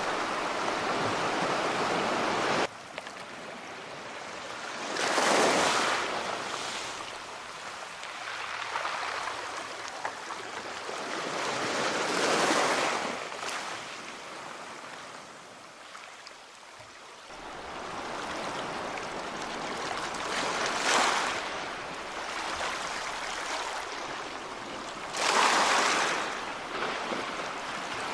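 Sea waves breaking and washing on a shore, each surge swelling and falling away every several seconds, four times. Before that there is a steady rush of water that cuts off abruptly about three seconds in.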